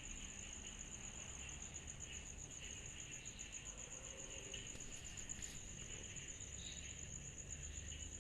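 A chorus of cicadas trilling steadily at a high pitch in a fast, even pulse, with a softer, lower buzzing beneath.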